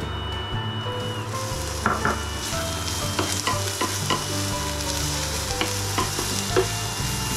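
Sliced red onions hitting a hot non-stick frying pan and starting to sizzle about a second in, with a wooden spoon scraping and tapping against the pan as they are stirred.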